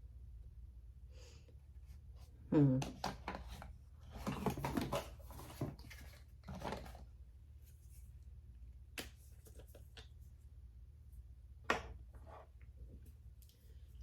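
Handling noises from unpacking a small cosmetic product: rustling of packaging and a few sharp clicks, over a low steady room hum.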